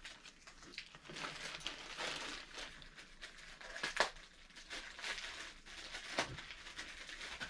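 Clear plastic bag crinkling and rustling in irregular crackles as a garment is pulled out of it, with one sharper crackle about four seconds in.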